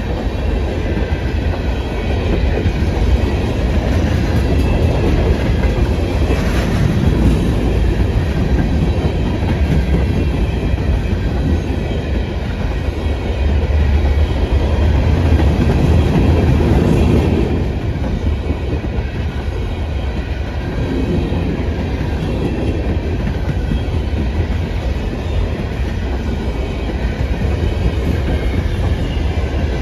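Freight train cars rolling past with continuous wheel noise and clatter on the rails, a little louder about halfway through.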